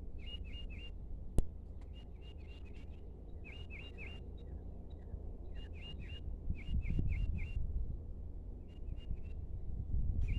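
A small bird chirping in quick runs of three to five short notes, a run every second or two, over a steady outdoor hum. There is a single sharp click about a second and a half in, and bursts of low rumble in the second half.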